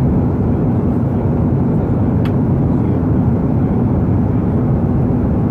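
Steady cabin noise of an Airbus A330-200 in descent: the low, even drone of its GE CF6-80E1 engines and the airflow around the fuselage, heard from inside the passenger cabin. A single light click sounds about two seconds in.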